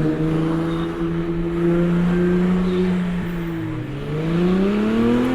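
Ferrari 296 GTS twin-turbo V6 through a full Capristo exhaust with catted downpipes, driving on the road. It holds steady revs, eases off slightly past the midpoint, then pulls with rising revs near the end.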